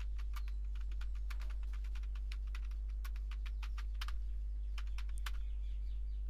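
Typing on a computer keyboard: a quick, irregular run of key clicks, over a steady low electrical hum.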